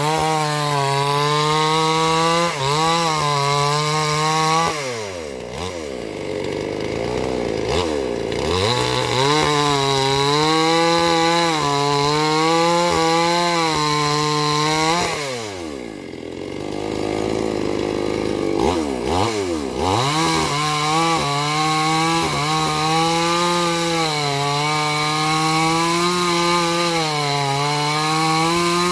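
Two-stroke chainsaw cutting through a durian-wood log, its engine running steadily under load. Twice its pitch falls away to a low idle for a few seconds before revving back up into the cut.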